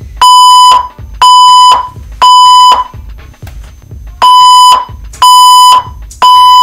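Fire alarm speaker/strobes sounding the temporal-three evacuation tone: three half-second beeps near 1 kHz, a pause, then three more. This is the alert tone that a voice evacuation system plays between repeats of its spoken fire message, here in drill mode.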